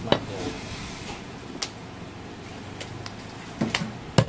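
Heavy butcher's knife chopping goat meat on a wooden log chopping block: four sharp chops at uneven intervals, the loudest just before the end.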